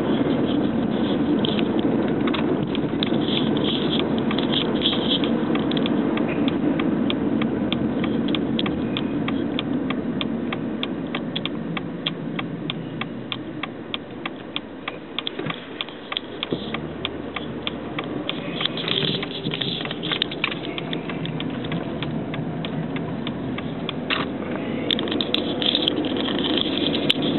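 Car cabin noise while driving: steady engine and tyre noise, with a rapid, regular ticking rattle through the middle stretch, and the noise easing for a few seconds partway through as the car slows in traffic.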